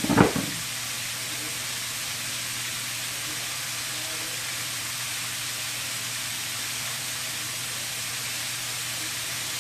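Chicken tenders deep-frying in hot oil in a stainless skillet: a steady, even sizzle. A couple of brief knocks come right at the start.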